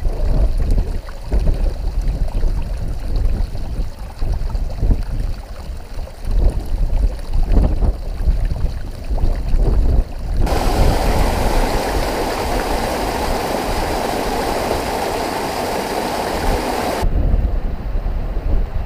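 Gusty wind buffeting the camera microphone as a low uneven rumble. About ten seconds in it gives way abruptly to the steady rush of running mountain-stream water for several seconds, then the wind rumble returns.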